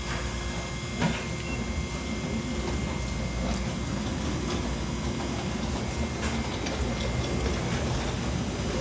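Steady background rumble and hum of a fast-food dining room, with a few short clicks about a second in and again about six seconds in.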